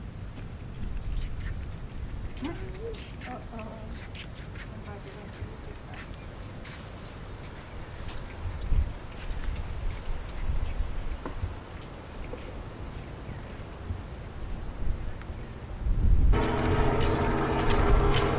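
A steady, high-pitched chorus of insects buzzing in the scrub, with a low rumble of wind on the microphone underneath. About two seconds before the end, a layer of steady held low tones comes in over it.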